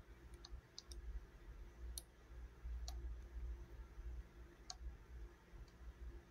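Faint, irregular clicks from setting the depth dial and handling the mechanism of an HPC punch key machine, about seven clicks spread over several seconds.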